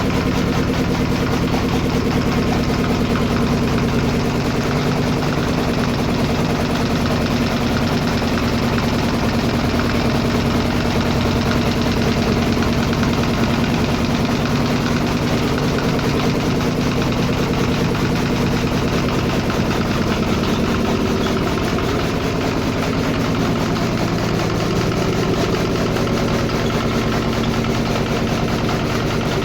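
An engine running steadily at idle, a continuous even sound throughout.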